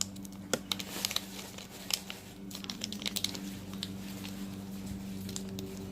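Plastic slime packet crinkling and slime squishing as red slime is squeezed out of its package, in irregular small crackles and clicks, over a steady low hum.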